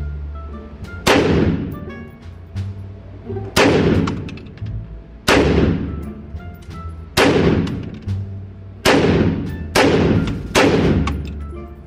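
AR-style rifle fired as single, deliberate shots at an indoor range, six in all, about two seconds apart. Each shot rings out with a long echo off the range walls.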